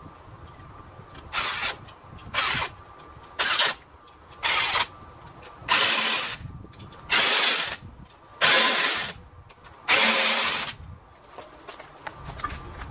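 Impact wrench spinning lug nuts through a torque stick, which limits the tightening torque: eight short bursts about a second apart, each a little longer than the one before.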